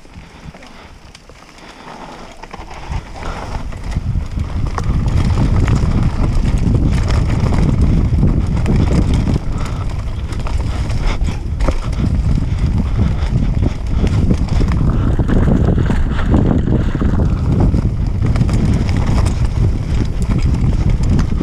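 Wind buffeting an action camera's microphone over the rumble and rattle of a mountain bike riding fast down a dirt trail, with scattered knocks from the bike over the ground. The noise builds over the first few seconds, then stays loud.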